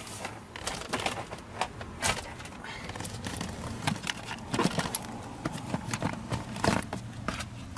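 Scattered clicks, taps and light rattles of hands handling parts at a vehicle's interior fuse panel, over a faint steady low hum.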